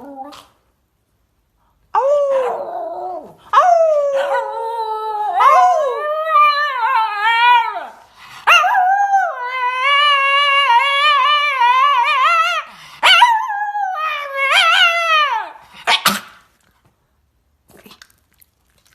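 Dog howling in a run of about four long calls with wavering pitch, stopping about sixteen seconds in.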